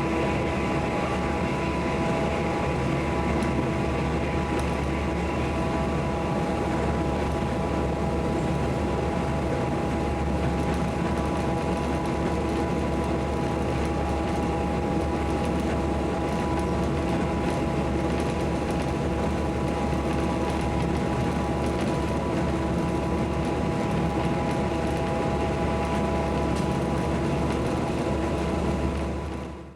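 Iwate Development Railway KiHa 200 diesel railcar running, heard from inside the car: a steady drone of engine and running gear, with several steady whining tones over a rumble of wheels on rail. The sound cuts off abruptly at the very end.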